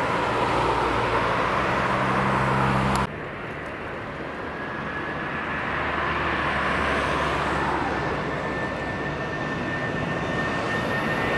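Airliner jet engines. A loud steady engine rumble cuts off abruptly about three seconds in. A quieter hum follows, in which a high whine rises slowly in pitch as the Airbus A319-132's IAE V2500 engines spool up on the runway for takeoff.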